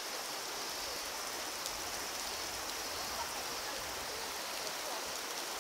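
Mountain stream running: a steady, even rush of water.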